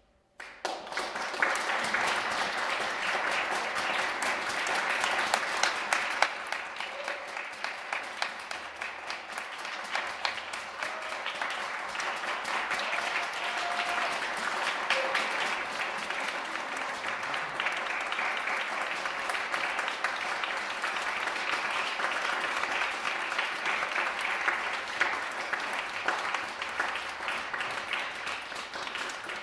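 Audience applauding, breaking out suddenly about half a second in and going on steadily.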